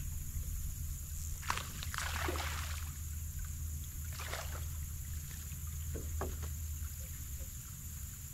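Steady low rumble on a bass boat's deck with a high steady hiss, broken by a few short swishes, the loudest about two seconds in, as the angler casts and works a fishing rod.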